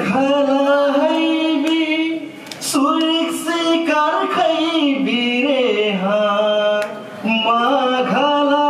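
A woman singing a Tharu folk song into a microphone, in long held notes that glide from one pitch to the next.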